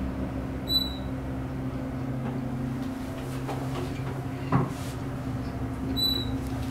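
Hydraulic elevator's pump motor humming steadily while the car travels. Two short high beeps come about five seconds apart, and there is one knock about four and a half seconds in.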